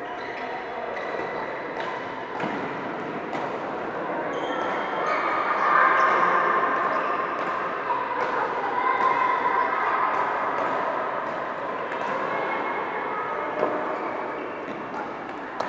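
Echoing badminton-hall din from several games at once: rackets hitting shuttlecocks in scattered sharp clicks, over a wash of distant players' voices.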